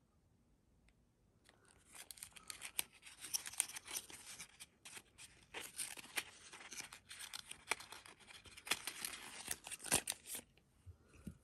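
Hands opening a small printed cardboard product box: rustling, crinkling and tearing of the packaging with scattered sharp clicks, starting about a second and a half in and stopping shortly before the end.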